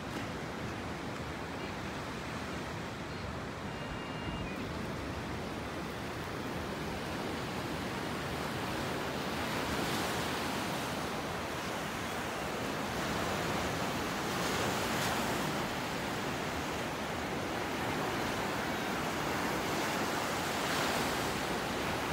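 Ocean surf breaking and washing up on a sandy beach: a steady rushing that swells several times as waves break, growing a little louder after the first few seconds.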